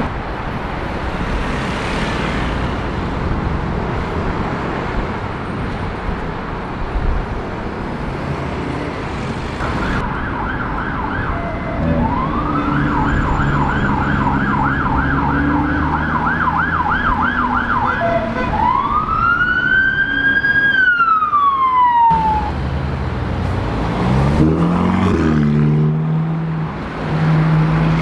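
Street traffic noise with an emergency vehicle's siren passing through the middle: a fast yelp of about three rises a second, then one slow wail that rises and falls away. Near the end an engine revs up.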